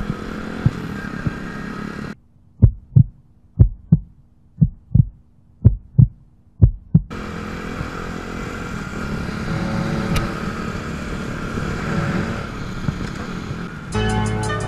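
Wind rush and engine hum of a small motorcycle on the move, cut off about two seconds in by a heartbeat sound effect: five double thumps, about one a second, over near silence. The riding noise then returns, and music with a beat starts near the end.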